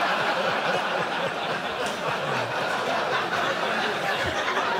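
Large theatre audience laughing together: a steady wash of crowd laughter with individual laughs breaking through.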